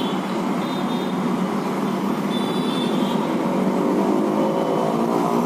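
Steady background road-traffic noise, with a vehicle engine's hum growing a little stronger toward the end.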